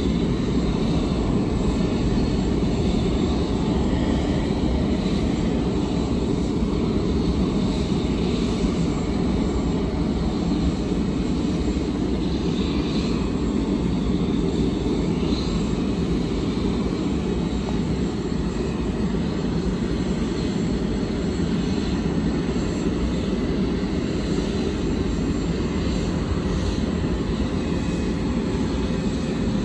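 The Boeing 747-400 LCF Dreamlifter's Pratt & Whitney turbofan engines running steadily on the ground, a constant low-heavy noise with no change in pitch.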